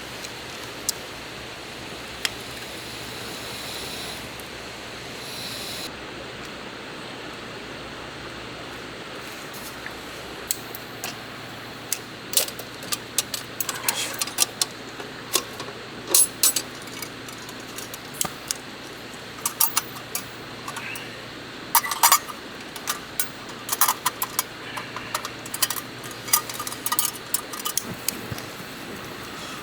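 Camp cookware being handled: a quick run of light clinks and clicks starting about twelve seconds in, over a steady background hiss.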